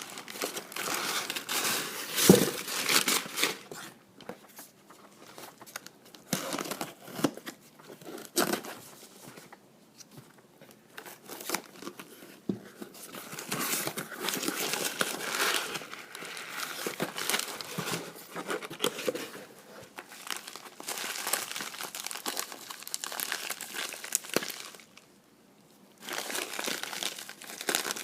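Packaging being handled and torn open: irregular crinkling and rustling with tearing, and a sharp knock about two seconds in.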